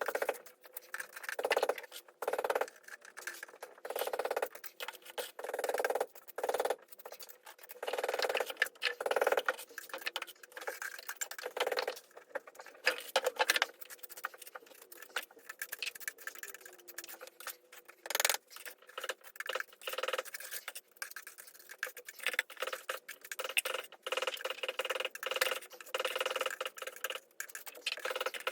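Irregular scratching and scraping in short, uneven bursts, with a sharp knock about eighteen seconds in.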